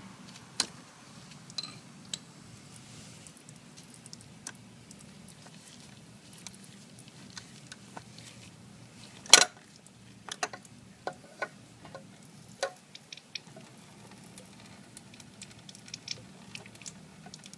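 Oil dripping from the Honda CBR500R's open oil-filter mount into a drain pan: scattered light ticks and taps over a faint steady hum, with one louder clack about nine seconds in.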